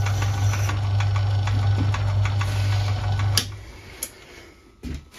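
Myford ML7 lathe running with a steady motor hum and a regular ticking from the drive, switched off with a click about three and a half seconds in. A few separate clicks and knocks of handling at the machine follow.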